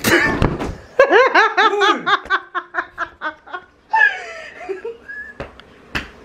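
A woman laughing hard. About a second in comes a quick run of high ha-ha-ha pulses, then further bursts of laughter.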